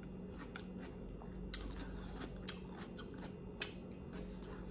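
Close-miked eating sounds: quiet chewing with scattered wet mouth clicks and smacks, including licking fingers.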